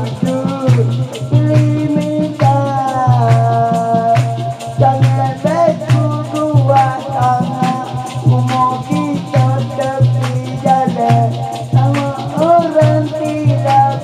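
Man singing a dikir barat-style song through a PA over live percussion: a steady drum beat and a constantly shaken rattle.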